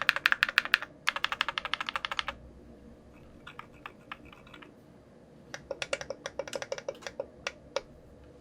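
Typing on a VARO JULY mechanical keyboard built with a polycarbonate plate, lubed SW Vintage Linear switches and clone GMK keycaps. A fast run of keystrokes lasts about two seconds, then a few softer, scattered keypresses, then another quick run near the end.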